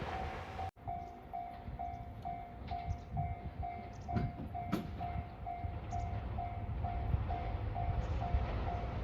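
Railway level-crossing warning bell ringing, an even ding about twice a second, over a low rumble that grows toward the end. It opens with louder rumbling noise that cuts off abruptly under a second in.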